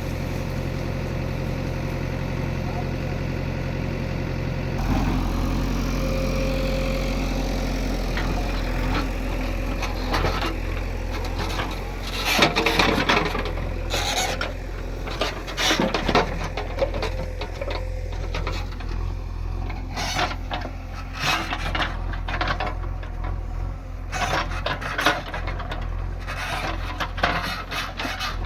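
JCB backhoe loader's diesel engine running steadily, its note rising about five seconds in as it takes load. From about ten seconds on, irregular scraping, knocking and rattling from the bucket and arm working the ground come over the engine.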